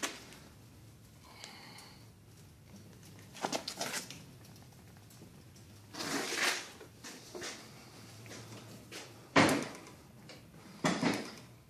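Several separate clunks and knocks of handling in a quiet room: a short cluster, a longer clatter, a single sharp knock, the loudest, about nine seconds in, and another near the end.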